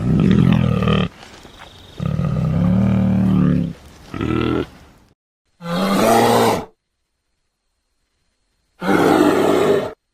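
Bear growls and roars, edited sound-effect clips: five separate calls of about one to two seconds each, the last three with dead silence between them.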